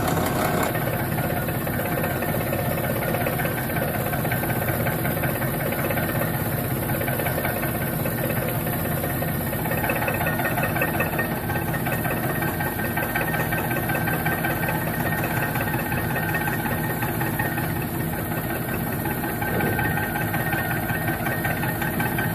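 Vertical milling machine running, its end mill cutting a metal bar clamped in the vise: a steady machine hum with cutting noise that holds throughout.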